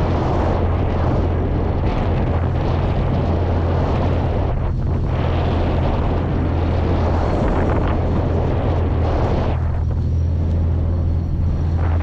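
Outboard-style engine of a motorized outrigger boat (bangka) running steadily under way, a constant low drone, with wind buffeting the microphone and water rushing past the hull.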